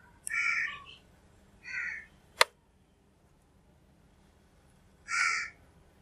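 A crow cawing three times, short harsh caws about a quarter second in, near the two-second mark, and a louder one about five seconds in. One sharp click sounds between the second and third caws.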